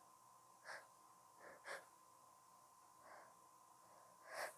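A woman's short, faint gasps and catches of breath as she holds back a sneeze, about five in all, the strongest near the end.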